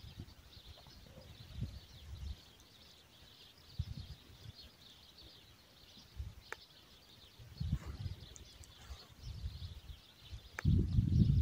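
Wind buffeting the microphone in irregular low gusts, growing much stronger near the end, over a faint steady high hiss.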